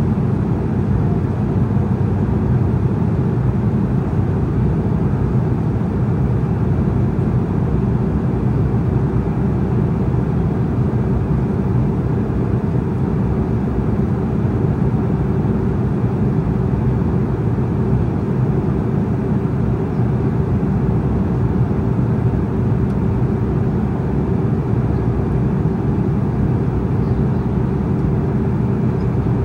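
Cabin noise of an Embraer E190 airliner in cruise: the steady low rumble of its turbofan engines and the airflow over the fuselage, heard from inside the cabin, with a faint steady hum in it.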